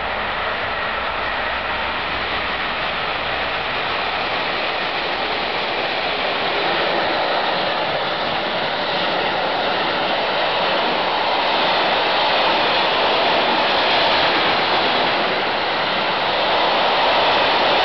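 Freight train of container wagons passing through a station at speed: a steady rushing of wheels on rail that slowly grows louder.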